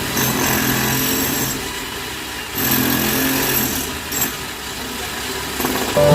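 Concrete-cutting diamond wire saw machine running at a steady level, its motor driving the wire through concrete.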